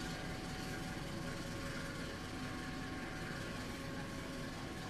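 Diesel-hauled passenger train pulling slowly out of the station, its locomotive engine and rolling wheels making a steady rumble with a few faint steady whining tones over it.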